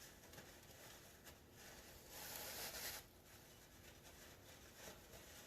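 Near silence, broken about two seconds in by a brief soft rubbing hiss lasting under a second: a rag wiping old engine oil from around the oil filter mount.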